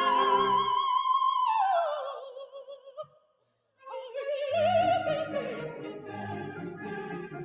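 Operatic soprano singing with orchestra: a high note held with wide vibrato slides down and dies away, followed by a brief silence about three seconds in, and then the orchestra and voice begin a new phrase.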